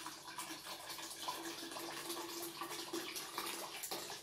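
Milk pouring in a steady stream from a carton into a plastic measuring jug.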